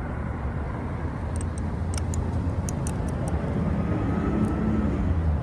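Steady low mechanical rumble, like a running vehicle engine, with a handful of light, sharp clicks partway through.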